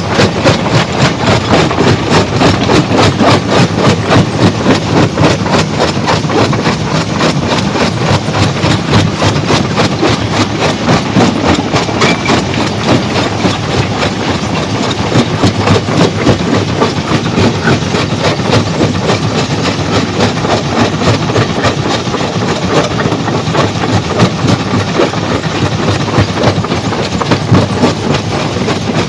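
Stone crushing machine running with a loud, fast, even rhythmic clatter that keeps up steadily throughout.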